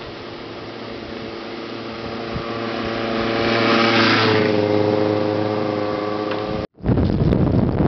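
A motor vehicle's engine passing close by: it grows louder to a peak about halfway through, then drops a little in pitch as it goes past. Near the end the sound cuts off abruptly, giving way to wind rushing on the microphone.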